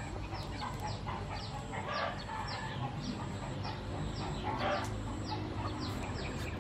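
Chickens clucking, with short high falling chirps repeating about twice a second.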